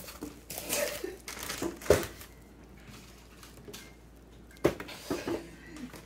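Packaging being handled: bubble wrap and cardboard rustling and crinkling as a power supply and its cables are lifted out of the box. There is a sharp knock about two seconds in and another near five seconds, with a quieter pause between.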